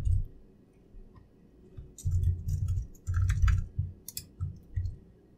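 Computer keyboard typing: keys clicking in short quick runs, with dull low thuds from the keystrokes beneath them.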